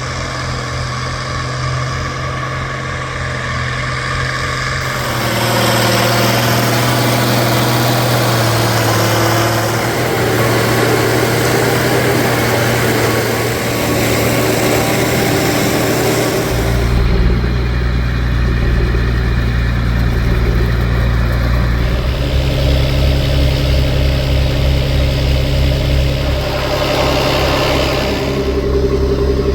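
Engines of corn-harvesting farm machinery running steadily and loudly. A rushing mechanical noise swells about five seconds in, and a deeper engine rumble joins about seventeen seconds in.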